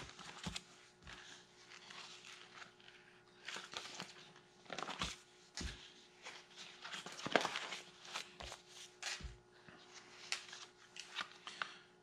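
Pages in plastic sheet protectors being turned in a three-ring binder: irregular crinkling and rustling of the plastic sleeves, with a few sharper ticks and slaps as sheets fall over.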